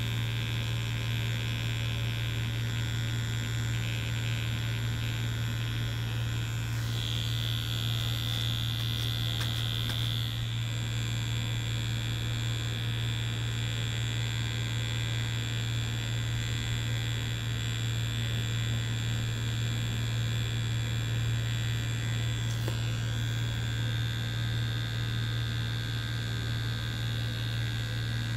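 Tattoo machine buzzing steadily as it runs, needle working into fake skin. Its higher tone brightens for a few seconds about a quarter of the way through.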